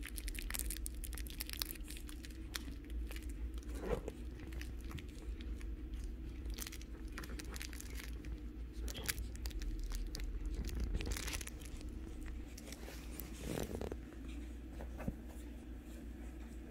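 Shih Tzu puppies tussling over a plush toy on a fleece dog bed: irregular rustling and scuffling of fur, fabric and stuffed toy, with scattered soft clicks and crinkles over a steady low hum.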